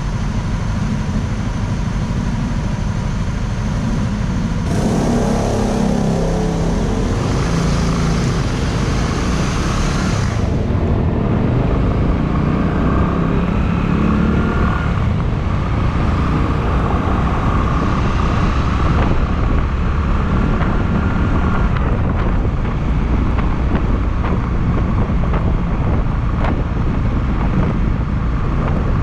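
Honda Clubman single-cylinder motorcycle running steadily while being ridden. A hissing rush of noise joins from about five to ten seconds in.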